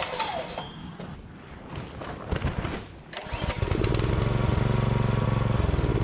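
The Viper OHV engine on an Earthquake Victory rear-tine tiller is pull-started. It catches about three seconds in and runs steadily, its note sagging slightly near the end.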